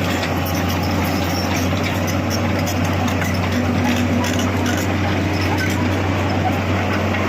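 Diesel engine of a crawler excavator running steadily, a constant low drone with noisy machinery clatter over it.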